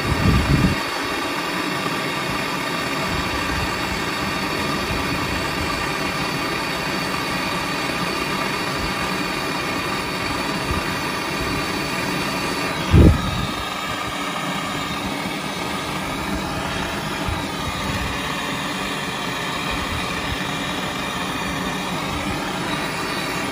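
Brazing torch flame running with a steady hiss while heating the copper pipe joints to unbraze a faulty compressor, with a dull thump about half a second in and another about thirteen seconds in.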